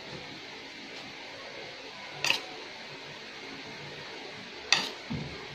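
A metal spoon clinks twice against ceramic plates while ground chicken is scooped onto a pita, about two seconds in and again near the end, over a steady background hiss.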